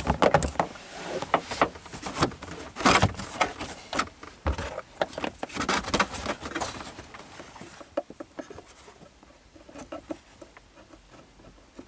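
Hands feeding a thick positive power cable behind plastic trim panels and carpet: irregular rustling, scraping and small clicks, busiest in the first half and thinning out toward the end.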